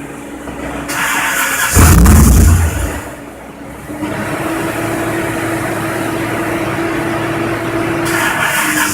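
Dodge Viper RT/10's 8.0-litre V10 on a cold start attempt: it fires with a short loud burst about two seconds in, drops away, then runs on as a steady even drone. The engine ignites but keeps cutting itself off.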